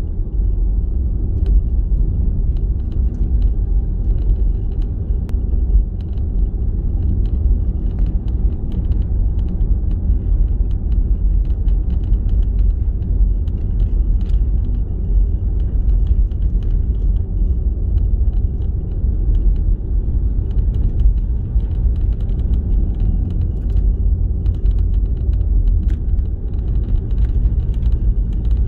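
Steady low rumble of a car's engine and tyres heard inside the cabin while driving, with scattered faint ticks and a faint steady high tone over it.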